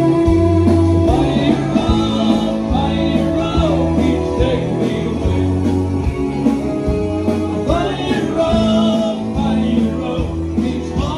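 Live country band playing: electric guitars over bass guitar and drums, with bending lead guitar lines.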